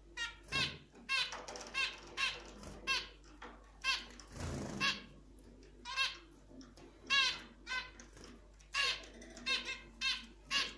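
Young zebra finches calling: short calls rich in overtones, one or two a second, some in quick doubles. A soft brief rustle about halfway through.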